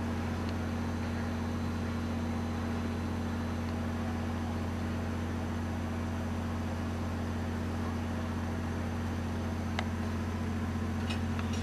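A steady low mechanical hum with a constant droning tone, like a small motor running, and a faint click about ten seconds in.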